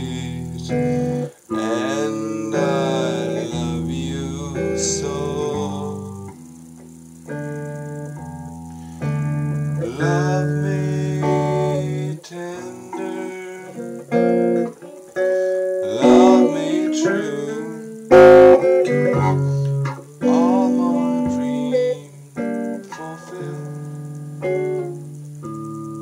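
A man singing while strumming chords on a small stringed instrument, with chords held for a few seconds at a time.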